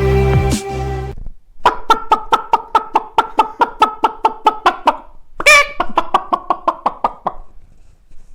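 Chicken clucking: a quick, even run of clucks, a loud squawk about five seconds in, then more clucks. A music cue cuts off about a second in.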